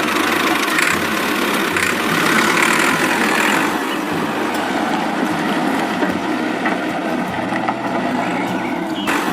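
Small electric motor of a home-built miniature tractor or bulldozer, running steadily with a low hum and a constant rattle.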